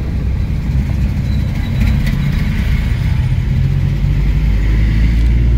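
Car engine and tyre noise heard from inside the cabin while driving: a steady low rumble that grows slightly louder in the second half.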